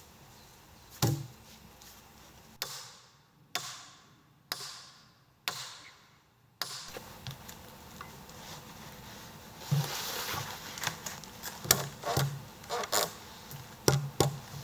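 Strikes and knocks on wood: one knock, then four strikes about a second apart, each ringing out briefly, followed by a run of irregular wooden knocks.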